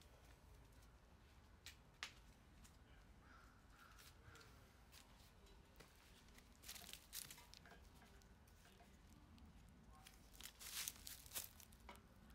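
Faint crinkling and peeling of a vinyl decal and its backing being handled and pressed onto a bike frame. There are a few soft clicks about two seconds in and bursts of crackle around the middle, and the loudest bursts come near the end.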